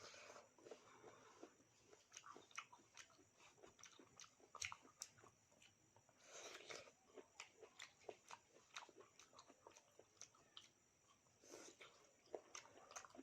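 Faint close-up eating sounds: a person chewing and biting food, with many quick wet mouth clicks and a few longer rustling stretches.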